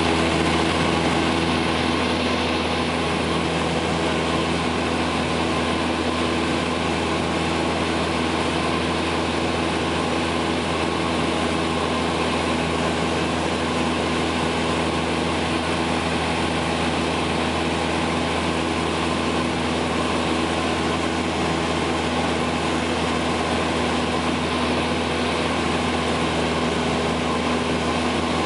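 Steady in-flight aircraft cabin noise: an even rushing hiss with a constant low engine hum and several steady tones, unchanging throughout.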